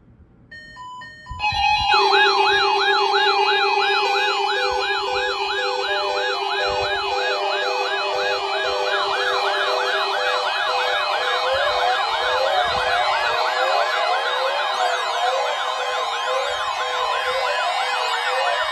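Several weather alert radios going off at once: a few short beeps, then fast warbling siren alarms overlapping over steady tones and a pulsing beep. They are set off by the NOAA Weather Radio's weekly warning-alarm tone test.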